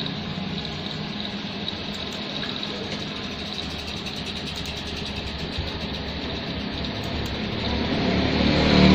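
A steady, even noise from loudspeakers driven by a home-built 150-watt OCL power amplifier, growing louder near the end as music comes in.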